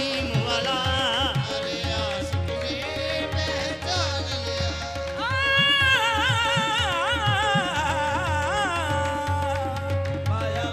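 Qawwali music: tabla playing under a singer's wordless, wavering melodic line, which swells about halfway through, with a steady note held beneath.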